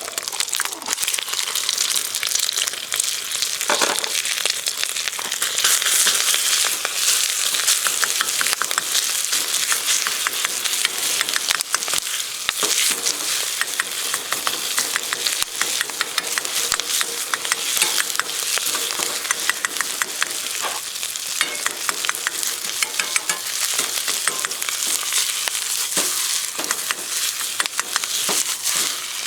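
Fried rice sizzling steadily in a camp wok over a campfire, while a cooking utensil stirs and scrapes it with many quick clicks and taps against the pan.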